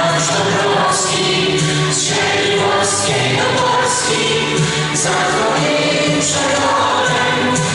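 A group of young children singing a song together, the singing carrying on steadily without a break.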